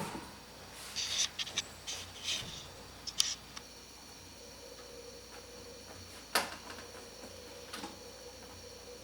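Small clicks and light rustling from handling hardware, with a sharp single click about six seconds in. A faint steady high-pitched whine comes in about a third of the way through.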